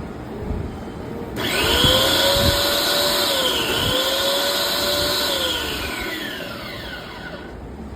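Electric motor of a Bosch Aqua 110 pressure washer switched on with a hiss and a rising whine. It runs steadily with a brief dip in pitch, then winds down and stops.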